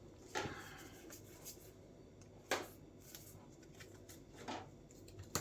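Disney Lorcana trading cards being handled and laid on a table: about four brief, soft rustles and taps, a second or two apart.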